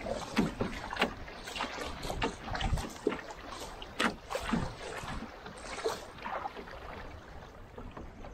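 Fast, shallow river water rushing and splashing against a canoe's bow in a riffle, with irregular slaps and splashes that ease off near the end.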